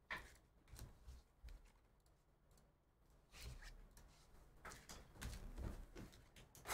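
Faint handling noises: a sharp click at the start and a few soft knocks, then from about three seconds in a sealed trading-card hobby box being picked up and handled on a rubber table mat.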